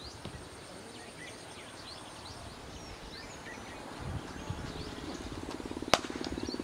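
Birds chirping steadily, then one sharp crack of a cricket bat striking the ball near the end. A low, fast rattle starts building just before the hit.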